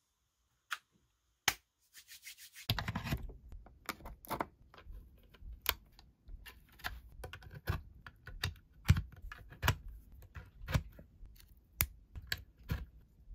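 Hands handling an aluminium USB hub and its cables: irregular sharp clicks, knocks and scrapes as USB plugs are pushed into the hub's ports. There are only a few isolated clicks at first; from under three seconds in, the clicks come thick and uneven over a faint room hiss.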